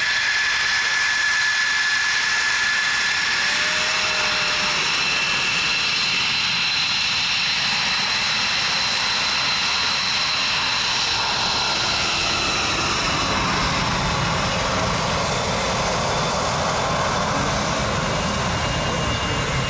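F-16 Fighting Falcon jet engine passing by. A high whine with several steady tones sits over a jet rush, and a deeper rumble builds about two-thirds of the way through.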